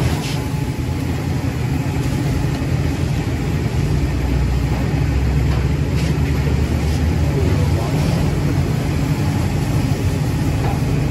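Fire engine's diesel engine running steadily to power its pump, which supplies the hose line, with a continuous hiss of water spray and steam over it.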